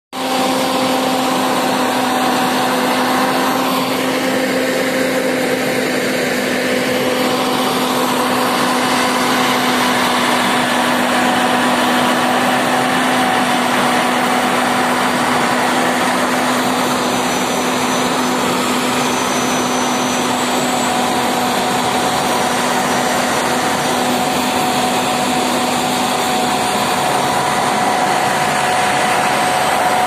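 Asphalt paver finisher running steadily: a constant engine and machinery drone with a steady whining tone.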